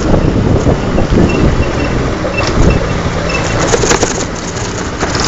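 TVS Apache single-cylinder motorcycle running at road speed, with wind rumbling on the microphone.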